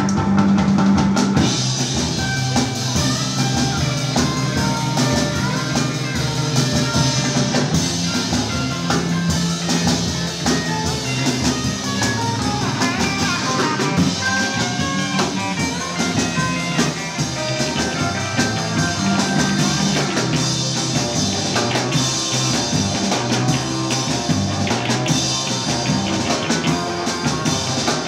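Live instrumental surf-rock band: electric guitars and electric bass playing over a driving drum kit, with the full band coming back in after a drum break about a second and a half in.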